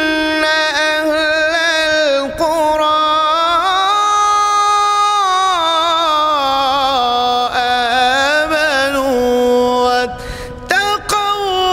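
A man's voice chanting a Quranic verse in melodic recitation (tilawat), holding long notes with wavering, ornamented pitch that slowly falls, with a short pause for breath about ten seconds in.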